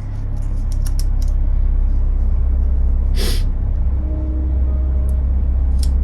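A steady low rumble, with scattered light clicks and one short hiss about three seconds in.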